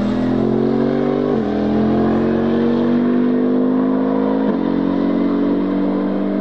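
Twin-turbo V8 of the Toyota GR GT3 race car accelerating hard. The pitch climbs steadily and falls sharply at two upshifts, about a second and a half in and again about four and a half seconds in.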